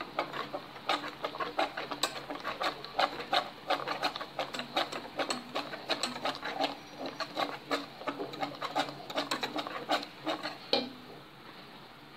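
Wire whisk beating crème pâtissière in a metal saucepan: quick, rhythmic clicking and knocking of the wires against the pan, several strokes a second, stopping about a second before the end.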